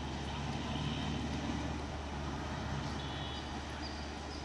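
Steady low drone of a distant vehicle engine, with no sharp events.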